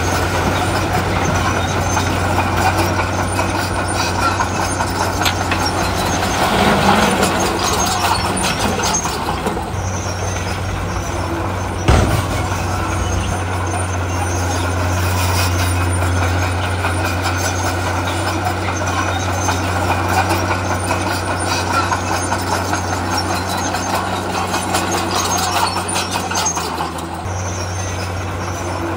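Heavy diesel earthmoving machinery, a bulldozer and dump trucks, running steadily under load, with one sharp knock about twelve seconds in.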